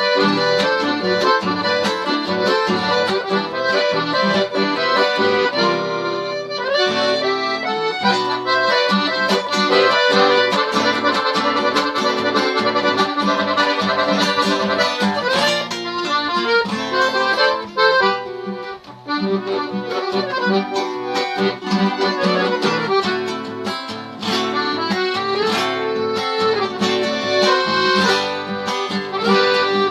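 Accordion (sanfona) playing an instrumental tune, with guitar accompaniment.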